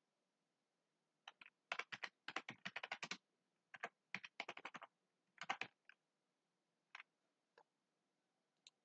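Computer keyboard typing: quick runs of keystrokes in several bursts, then a few single clicks near the end.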